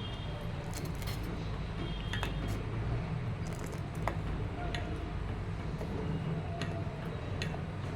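Spiced herbal decoction boiling in a pan on the stove: scattered small pops and ticks, irregular, over a steady low hum.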